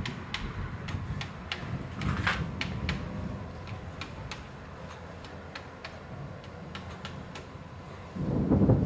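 Low rumble of a thunderstorm with scattered sharp ticks through it; about eight seconds in, a loud rumble of thunder sets in suddenly.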